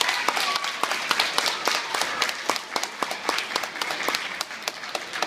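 Audience applauding: many hands clapping at once, thinning slightly near the end.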